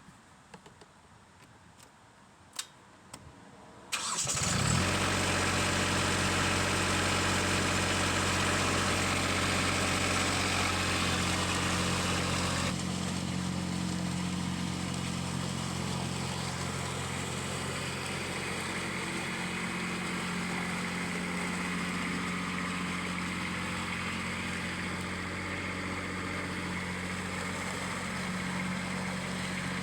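A few faint clicks, then about four seconds in a Kubota B2601 compact tractor's diesel engine cranks, catches and runs steadily. About thirteen seconds in it settles to a slightly lower, quieter running sound and keeps running evenly.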